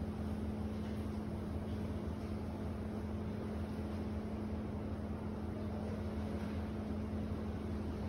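Ambient noise of an apartment-block alley: a steady low machine hum with one constant pitched tone in it, unchanging throughout.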